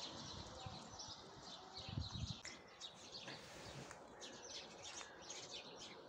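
Small birds chirping faintly and repeatedly, many short high chirps in quick succession, over a low steady background noise, with a soft low thump about two seconds in.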